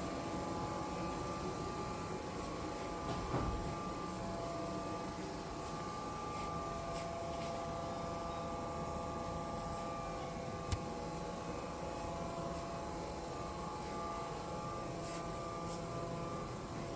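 Deckel Maho DMU 50-V 5-axis CNC machining center running with a steady hum and several steady whine tones, a light tick or click now and then.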